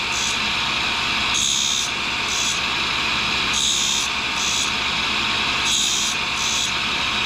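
A tool and cutter grinder running with a steady high whine while a boring bar tip is passed back and forth across its cup wheel. A gritty grinding hiss comes in pairs about every two seconds, a longer one and then a shorter one, one for each stroke out and back.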